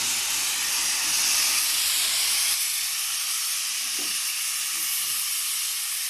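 Ice cream cone baking machine giving off a steady, even hiss.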